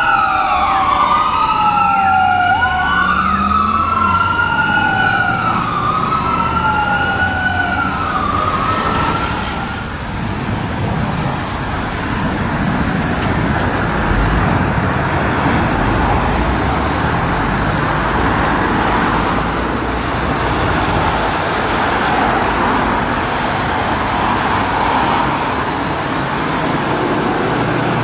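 Fire truck's electronic siren wailing, rising and falling about once every two and a half seconds and fading away over the first ten seconds as the truck drives off. After that, steady street traffic, with a car passing near the end.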